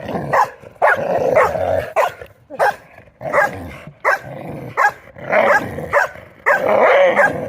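Dogs barking and yelping in a string of short calls, about one a second, some running longer and rougher, as young dogs squabble.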